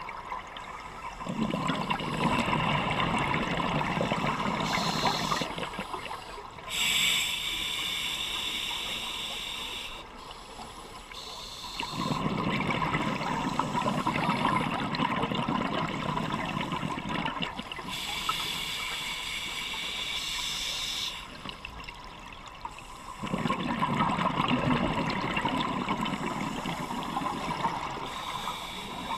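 Scuba diver breathing through a regulator underwater. There are three long exhalations of bubbling, each about five seconds, and between them two hissing inhalations of about three seconds each.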